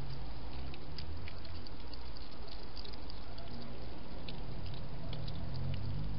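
A hedgehog chewing and smacking as it eats: irregular small wet clicks, several a second, over a steady low hum.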